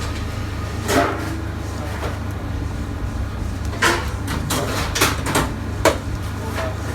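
Steady low hum of kitchen equipment with a scattering of knocks and clatters, about seven in all, most of them in the second half.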